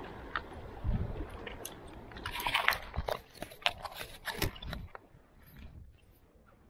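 Crunchy scraping and clicking handling noise from a gloved hand rubbing close to the microphone, a dense cluster of scrapes and clicks in the middle, then quieter.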